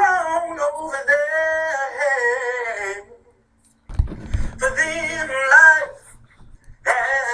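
A person singing in long held, wavering phrases, with a break about three seconds in and a low thump near four seconds.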